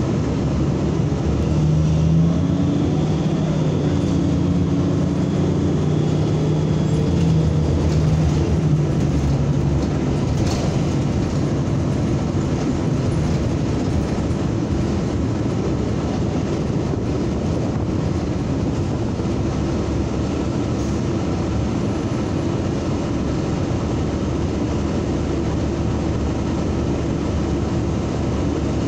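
NABI 45C-LFW transit bus under way, heard from inside the cabin: a steady rumble of engine and road noise. During the first several seconds an engine hum shifts in pitch, then it settles.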